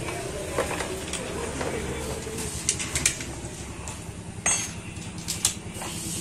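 Small metal bolts clinking as they are picked up and handled by hand, a handful of sharp clinks in the second half.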